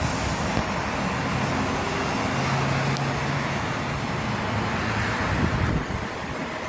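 Steady road-traffic noise with the low hum of vehicle engines running, easing a little near the end.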